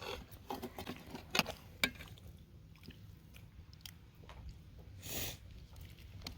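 People chewing and biting into freshly baked pizza with a crisp crust, with scattered small crunches and clicks, and a short breathy hiss about five seconds in.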